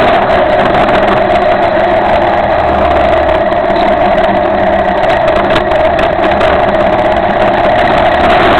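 Cagiva Elefant motorcycle engine running at a steady pace while riding, heard from a camera mounted on the bike, with a steady drone under an even rush of wind and road noise.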